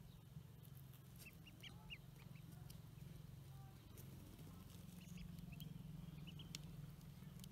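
Pekin ducklings peeping faintly: short, high peeps in two loose clusters, one starting about a second in and another around five to six seconds in, over a low steady hum.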